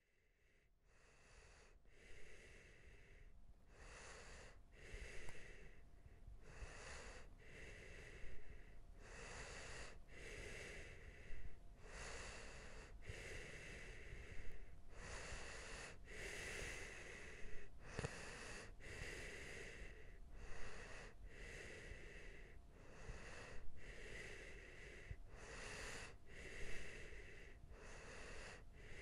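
Rapid, wheezy breathing, one breath about every second, over a low steady hiss that fades in at the start.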